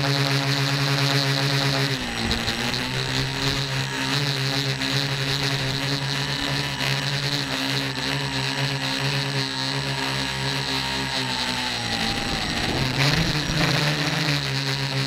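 Tricopter's electric motors and propellers whining steadily, picked up by the camera on the frame. The pitch dips about two seconds in and falls and rises again near the end, following the throttle.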